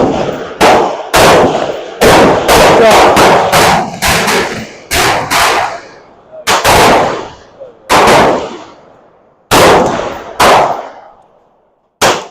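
Rifle gunfire: a rapid, irregular string of about twenty shots, some close together, each with a ringing tail, thinning out in the last few seconds.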